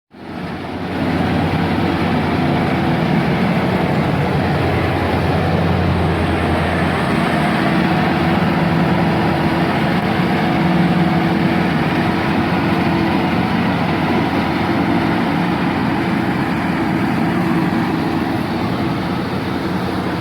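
Rice combine harvester running steadily, a continuous engine drone under broad mechanical noise.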